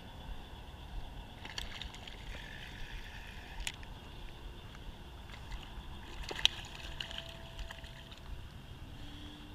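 A hooked channel catfish being reeled in on a light rod: faint water sloshing and scattered clicks of rod and reel handling, with one sharp click about six and a half seconds in, over a steady high hum.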